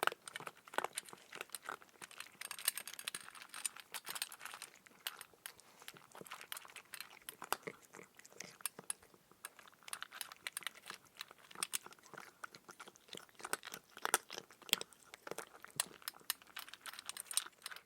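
Cat eating dry kibble: rapid, irregular crunching and chewing clicks, with now and then the light clink of kibble against the bowl.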